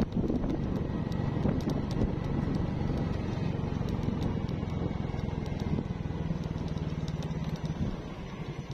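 Motorcycle engine running under way, mixed with road and wind noise, heard from the rider's seat. In the last few seconds a steady low engine note comes through more clearly.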